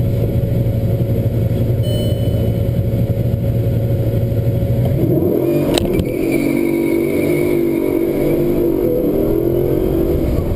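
Bugatti Veyron Super Sport's quad-turbocharged W16 engine, heard from inside the cabin, held at steady revs on launch control. About five seconds in there is a click, the engine note changes and the car pulls away hard, with a faint high whine.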